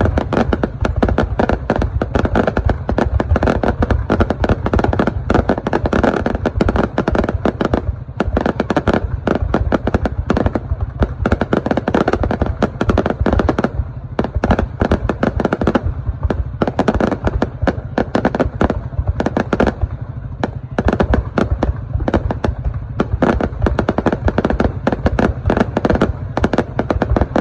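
Aerial fireworks display: a continuous barrage of bangs and crackling bursts, several a second, over a deep rumble.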